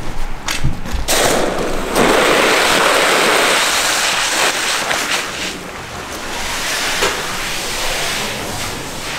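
A few knocks as a firefighter's hand works a valve on a fire hose, then a rushing hiss from about a second in as water is let into the hose and charges it. The rush is loudest for the first few seconds, then settles to a steadier, slightly quieter flow.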